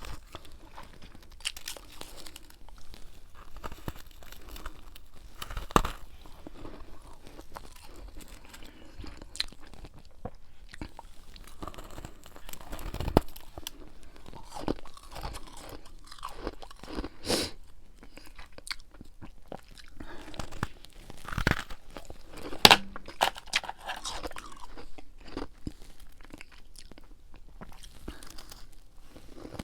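Close-miked chewing of freezer frost: a steady run of crisp, crackly crunches with a few louder bites scattered through.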